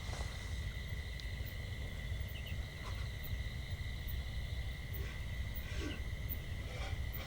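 Campfire burning: a steady low rumble with a few faint crackles.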